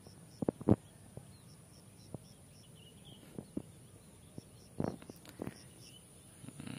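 Quiet open-field ambience with birds chirping faintly in the distance, broken by a handful of sharp knocks or taps, the loudest one under a second in and a small cluster about five seconds in.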